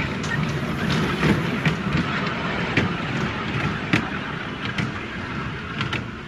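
Small fairground kiddie train ride running on its rail track, a steady rumble with irregular sharp clicks.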